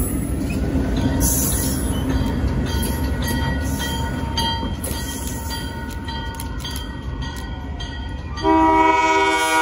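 ALCO C424 diesel locomotive rumbling past and pulling away, engine and wheels on the rails. About eight and a half seconds in, its horn starts: a loud steady chord of several tones, the loudest sound here.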